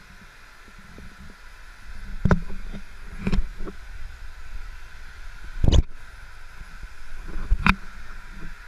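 Steady hiss in a steam room, broken by four muffled thumps and knocks close to the microphone. The loudest knock comes a little past halfway.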